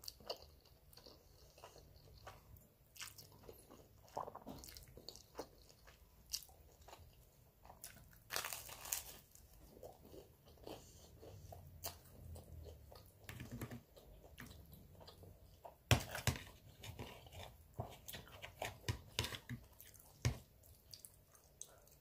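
Close-miked eating of spaghetti and garlic bread: steady chewing with wet mouth clicks and smacks, and a few louder crunchy bites, the loudest about 16 seconds in.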